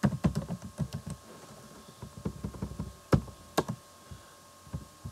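Computer keyboard typing: a quick run of keystrokes, then scattered taps and a couple of louder single clicks.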